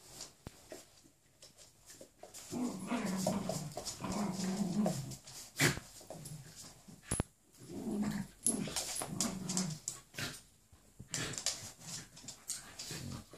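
A golden retriever puppy and a Jack Russell cross play-fighting, with low play-growls in long bouts starting about two and a half seconds in and again about eight seconds in. Sharp clicks and knocks of scuffling run between the growls.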